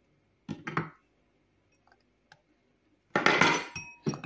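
An egg tapped against the rim of a drinking glass to crack it: two light knocks about half a second in, then a harder strike around three seconds with the glass ringing briefly, and one more knock near the end.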